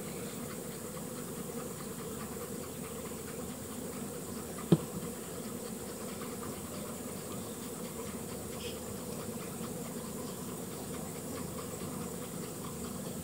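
Steady buzzing of a large swarm of honeybees around and on the hive boxes. A single sharp knock about five seconds in stands out above the buzz.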